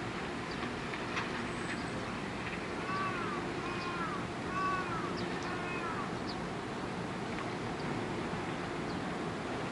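Four short mewing animal calls, each rising then falling in pitch, over steady background noise.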